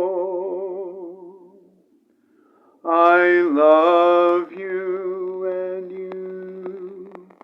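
A man's unaccompanied voice: a held sung note with vibrato fades away, then after about a second of quiet he sings a short wordless phrase that dips in pitch and holds a long steady note, with a few faint clicks near the end.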